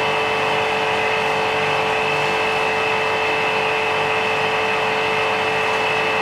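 Vacuum pump of a hot-press laminator running steadily with a constant whine, pulling vacuum on the pressing chamber before the press comes down.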